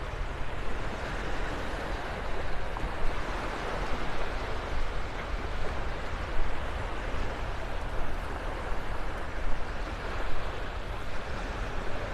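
Gentle surf washing onto the beach, an even hiss with a low rumble underneath and small swells in loudness now and then.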